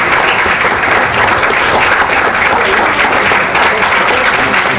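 Audience applauding steadily, a dense even clapping that neither builds nor fades.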